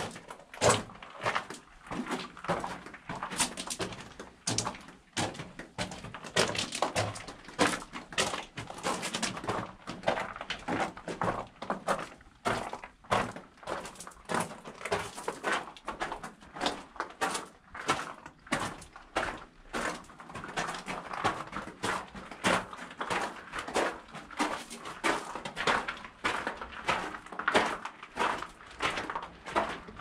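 A person's footsteps walking at an even pace, about two steps a second.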